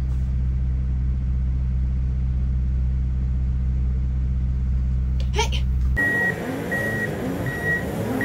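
Steady low engine drone heard from inside a vehicle, with a brief rising pitched sound just before it cuts off. About six seconds in, a reversing alarm starts beeping, roughly one beep every 0.75 s, over background voices.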